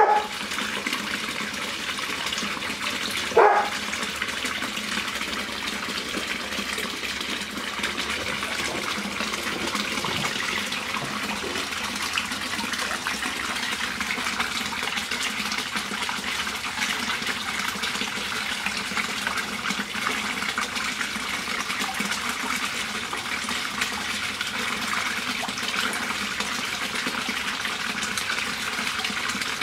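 Steady rush and splash of running water into a goldfish pond. About three and a half seconds in, a single short, loud pitched sound stands out above it.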